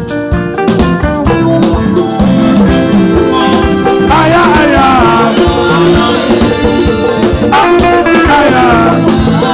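Upbeat live praise-band music with a drum kit, and a voice singing about four seconds in and again near the end.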